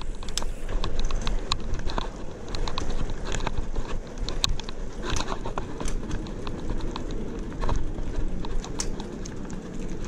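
Bicycle rolling over cracked, uneven concrete: irregular clicks and rattles from the bike over a steady low rumble of tyres and wind.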